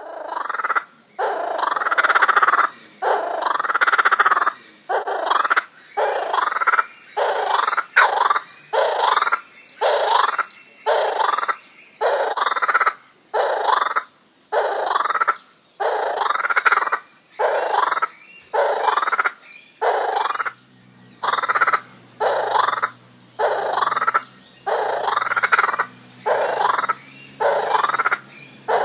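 Laughing kookaburra calling over and over, one short call about every second in an even rhythm. A faint low hum comes in about two-thirds of the way through.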